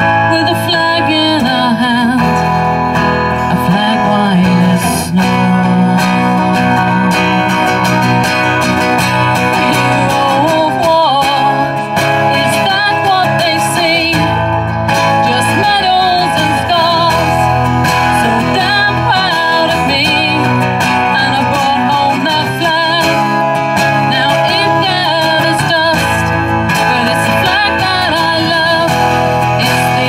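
Two acoustic guitars strummed and picked together in a live acoustic performance, with singing over them.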